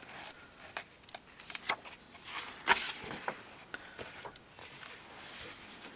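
Paper pages of a coloring book being handled and turned by hand: a few dry rustles and soft clicks, the loudest a little under three seconds in.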